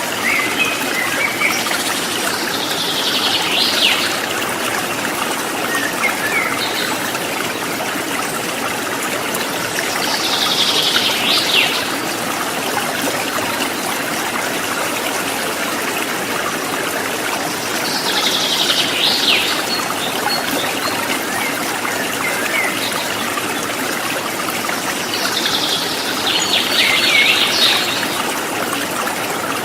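Rocky river water running steadily over stones, an even rushing flow. A bird sings a short phrase four times over it, about every eight seconds.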